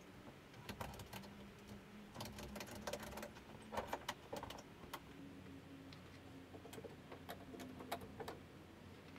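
Ratchet strap being cranked tight by hand: irregular clicks and rattles from the ratchet buckle in small clusters, pulling the roof down onto the camper walls. A faint steady hum runs underneath.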